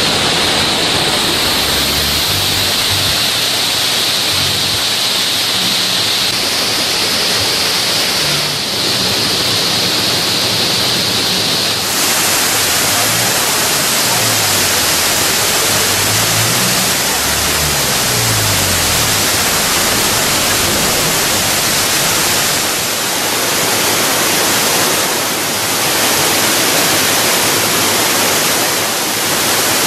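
Waterfall swollen by heavy rain, its falling water making a loud, steady rush with no break. About twelve seconds in, the rush shifts to a fuller, brighter hiss.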